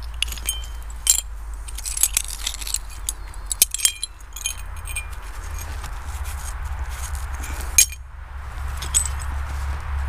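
Porcelain shards clinking against each other as gloved hands pick through loose soil: a run of sharp clinks in the first four seconds and a couple more near the end.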